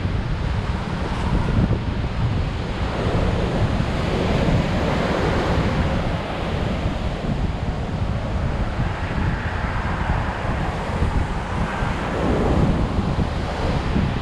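High surf breaking and washing up a sandy beach in a strong wind, the wash swelling and easing every few seconds, with wind buffeting the microphone in a steady low rumble.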